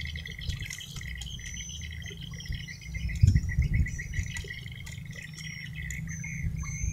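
Continuous high-pitched chirping and trilling from small animals, over a steady low rumble, with a few soft knocks about three seconds in.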